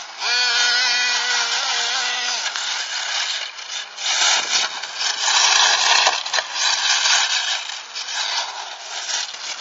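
1/8-scale RC8 off-road buggy with a brushless electric conversion: a steady electric motor whine for about two seconds, then a loud rough hiss that swells in the middle and eases near the end.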